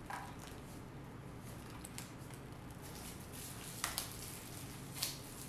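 Plastic takeout lid and packaging being handled on a table: a few light clicks and taps scattered through, over a low steady room hum.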